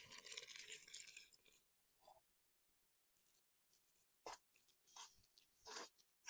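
Liquid poured from a glass measuring jug into flour in a stainless steel mixing bowl, a steady pour that fades out about a second and a half in. Then a few faint, short scrapes and rustles as a hand mixes the wet flour into dough in the bowl.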